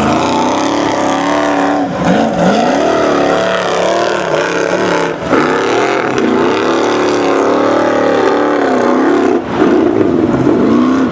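Formula Offroad buggy's engine revving hard under full load as it climbs a steep sand hill, the pitch repeatedly swooping up and down, with short drops about two, five and nine seconds in.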